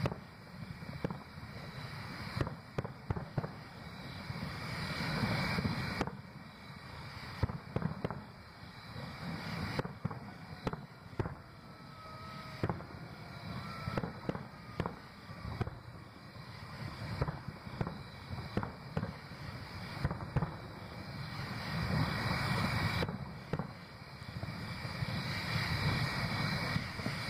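Aerial fireworks shells bursting in quick, irregular volleys, each boom sharp and followed by rumbling echo.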